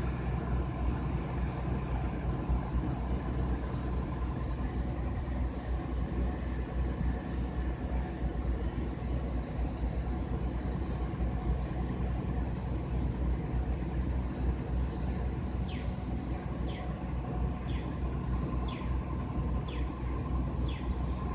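Heavy fire truck engines running steadily with a constant low rumble. A faint steady whine and a regular faint high ticking sit above it. Near the end a series of short falling chirps repeats about once a second.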